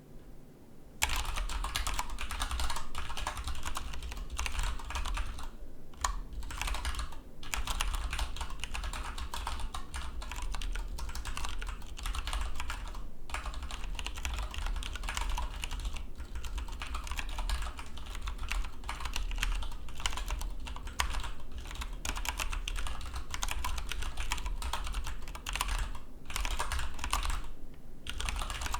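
Fast, continuous typing on a split keyboard: a rapid stream of key clicks starting about a second in, broken by a few brief pauses.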